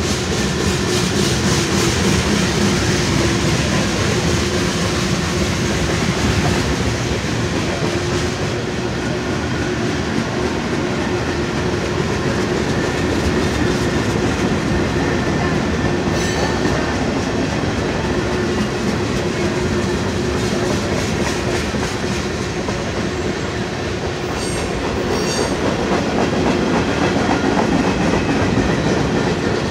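Freight cars of a mixed freight train rolling past at steady speed: continuous wheel-on-rail rolling noise with clicking over the rail joints and a steady ringing tone underneath, plus a few short high squeaks about halfway and again a few seconds later.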